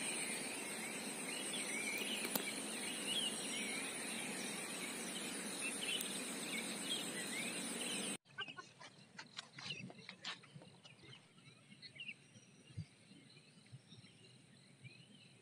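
Outdoor morning ambience of birds chirping over steady background noise and a high, steady whine. About eight seconds in it cuts abruptly to a much quieter stretch with scattered faint chirps and clicks.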